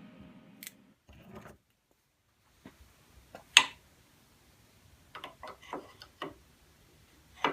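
Scattered light clicks and taps of hand tools and small metal parts being handled during lathe gearbox assembly, about a dozen spread irregularly, the sharpest one about three and a half seconds in.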